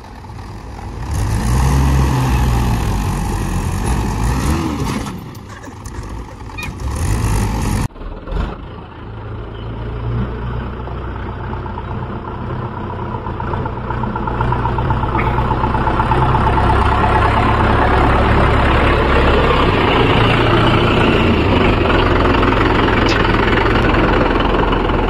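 Mahindra tractors' diesel engines running hard while two tractors pull against each other on a chain, the revs rising and falling. A sudden break about eight seconds in, then a single tractor engine runs steadily, growing louder over the second half.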